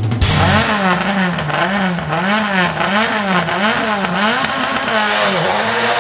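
Race car engine running hard on a hillclimb course, its note climbing and dropping about twice a second, settling to a steadier note near the end.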